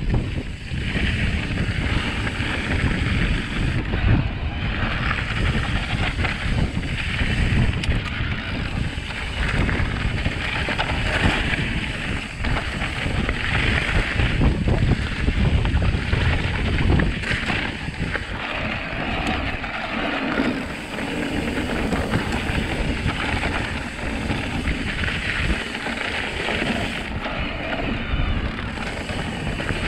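Riding an electric mountain bike down a dirt trail: wind buffeting the microphone over a steady rumble of tyres on the ground, with short rattles and clicks from the bike, the rushing noise swelling and fading with speed.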